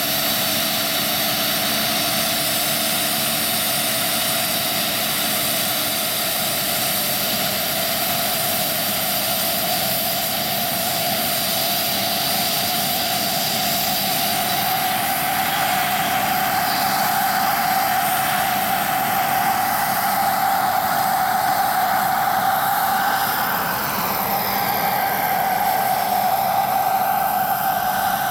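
JetCat PHT3 model helicopter turbine running with a steady high whine, together with the swish of the main rotor. The sound shifts in the second half as the large scale-model helicopter lifts off and flies.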